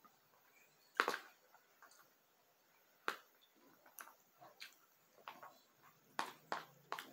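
Close-up eating sounds: a fork clicking against a plate and the mouth sounds of chewing spaghetti and fried chicken, heard as a string of short, faint clicks about a second apart, the loudest about a second in.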